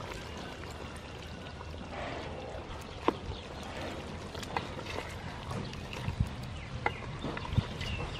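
Coconut milk pouring into a metal pot of chicken curry, then a wooden spoon stirring the curry and knocking sharply against the pot's side about five times.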